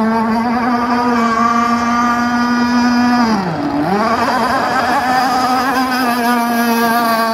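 Radio-controlled speedboat's new motor running at speed with a steady high whine. About three and a half seconds in, its pitch drops sharply and climbs straight back.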